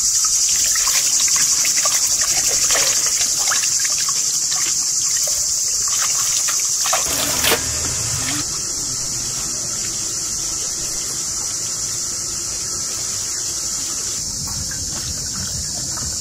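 Water splashing and sloshing in a metal basin as raw lamb tripe is rinsed and squeezed by hand, for about the first seven seconds, ending with a single knock. A steady high insect chorus runs underneath.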